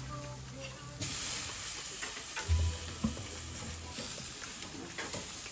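Pork belly sizzling on a grill, the hiss growing stronger about a second in, with a few light clicks and knocks.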